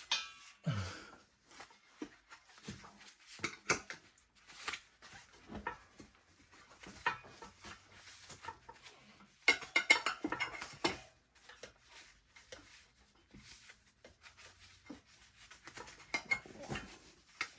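Tire spoons clinking and scraping against a motocross wheel rim while the tire is pried off. The knocks are irregular, with a louder clatter about ten seconds in.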